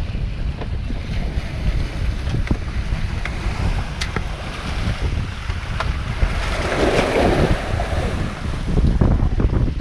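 Wind buffeting the microphone over the sea, with waves washing around the bamboo posts of the platform. There are a few faint clicks, and a louder rush of water about seven seconds in.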